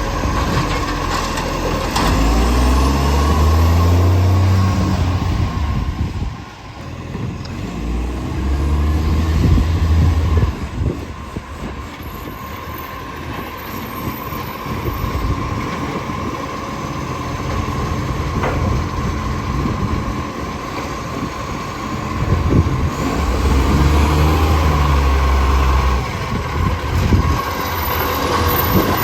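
Garbage truck diesel engine running, revving up three times in a strong low rumble, with a truck that has an exhaust leak.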